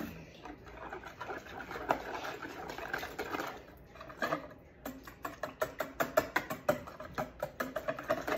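Wire whisk beating eggs in a mixing bowl: a run of quick clicks and taps of the wires against the bowl, loose and uneven at first, then fast and regular at about four to five strokes a second from about halfway through.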